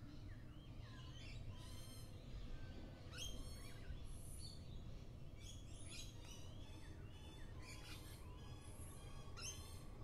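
Several birds chirping and calling all around, in quick bursts of short high notes and falling calls that come in clusters every second or two, over a steady low rumble.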